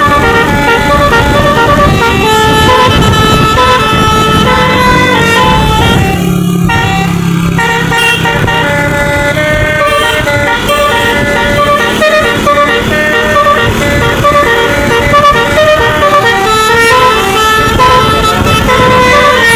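A bus's telolet 'Basuri' horn, a set of musical air horns, plays a melody nonstop in quick, stepping notes over a low rumble. The higher notes break off for a moment about six seconds in, leaving a lower held tone, then the tune carries on.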